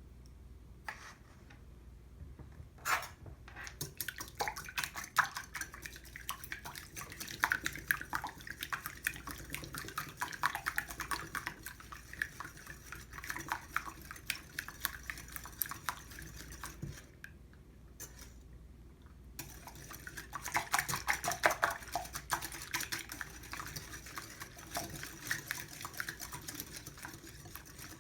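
A utensil beating ingredients in a bowl: fast, rapid clicking of metal against the bowl as the batter is whisked, stopping for a couple of seconds past the middle, then starting again.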